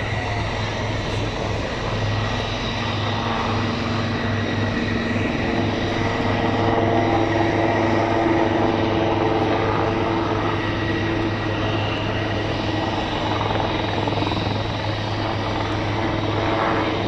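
Military helicopter hovering low with a vehicle slung beneath it: steady rotor beat under a high turbine whine, growing a little louder midway.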